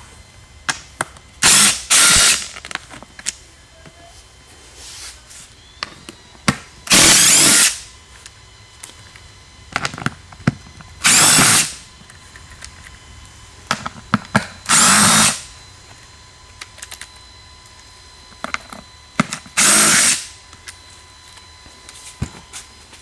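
DeWalt cordless drill-driver backing out the stock mounting bolts from a golf cart seat frame, in six short runs of about half a second to a second each, the third the longest. Small clicks and rattles of handled hardware come between the runs.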